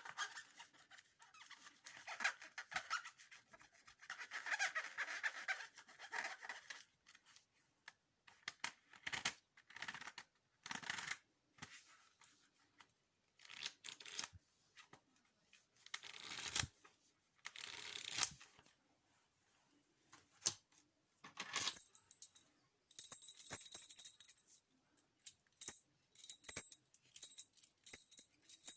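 ASMR trigger sounds: irregular short bursts of scratching and rustling from objects handled close to the microphone, with gaps between them. Near the end a light, high metallic jingling begins.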